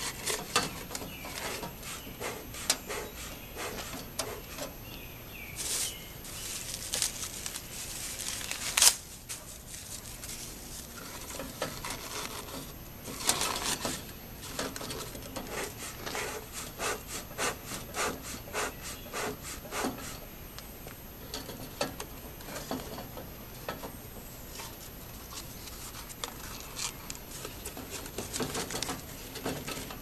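Rustling, scraping and crinkling of cardboard and paper strips being handled and pushed into a bee smoker's metal fire chamber, with many scattered clicks and one sharp knock about nine seconds in.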